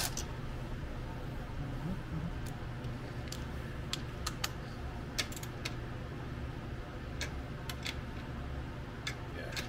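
Hand ratchet tightening the water pump cover nuts on a sterndrive lower unit: scattered, uneven sharp clicks over a low steady hum.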